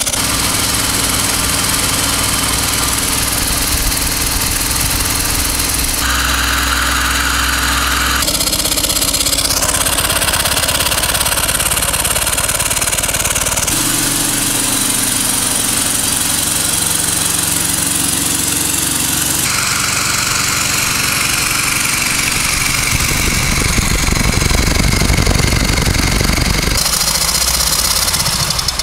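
Homemade single-cylinder steam motorcycle engine running on compressed air, its rods and crank turning the rear wheel and belt-driven car alternators; this is the first running-in of the rebuilt engine. The sound changes abruptly several times.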